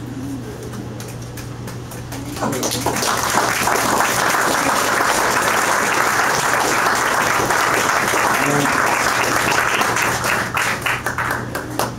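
Audience applauding after a poem ends. The clapping swells about two seconds in, holds steady, and thins out near the end, with a steady low hum underneath.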